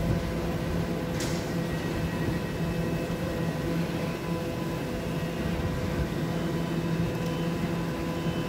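Steady electrical hum of a stationary electric train standing at the terminus platform, with several constant tones, and one short click about a second in.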